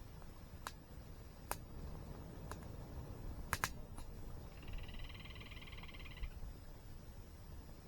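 Campfire wood crackling with a few sharp pops, the loudest a quick double pop about three and a half seconds in, over the low steady rush of a waterfall. Midway comes one rapid pulsed trill from a small animal, lasting about a second and a half.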